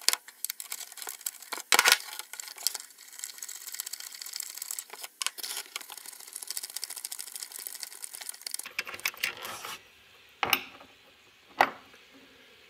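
Ratchet wrench with an 8 mm socket clicking rapidly as it backs out the purge valve's mounting bolts, with a few louder knocks of the tool. The clicking stops about three-quarters of the way through, then two separate sharp clicks follow.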